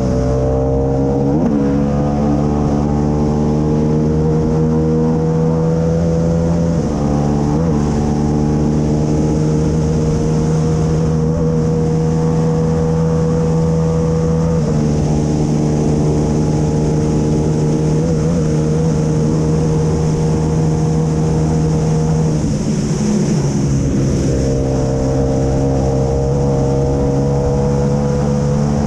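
KTM 890 parallel-twin engine of a sidecar racing outfit running hard at high revs, heard onboard, its pitch stepping a few times as it changes gear. Near the end the engine note drops and breaks up, then rises again under acceleration.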